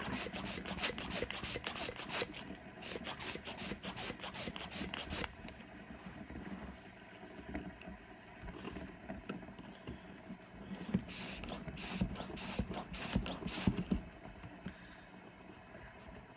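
Hand balloon pump pushing out short puffs of air in quick strokes, about three a second: a run of several seconds, a pause, then a second, shorter run about eleven seconds in.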